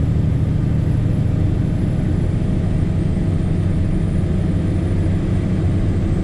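Diesel engine of a loaded tandem dump truck running steadily as it drives, heard from inside the cab as a low, even drone.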